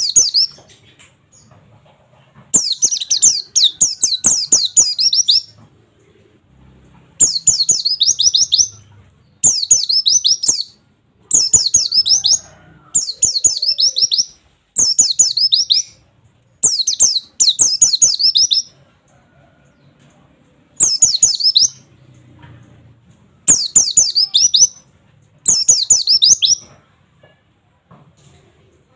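White-eye (pleci) singing its rapid 'wit wit wit' song: about ten bursts of quick, high, downward-slurred notes, each run lasting one to three seconds, with pauses of a second or two between them.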